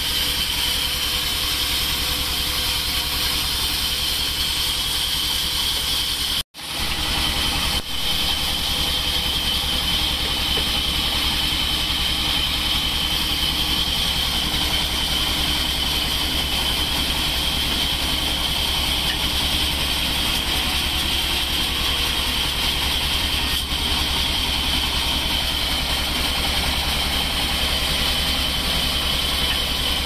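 Large vertical band sawmill running steadily, a constant high whine over a low hum. The sound drops out for a moment about six seconds in.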